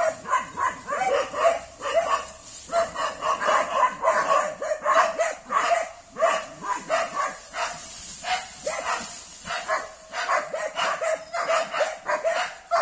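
Dogs barking in rapid, repeated volleys at a pair of water buffalo, with only short pauses.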